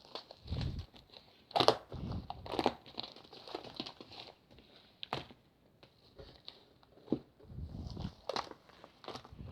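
Slime being squeezed and worked by hand: irregular sharp clicks and pops with a few short low squelches.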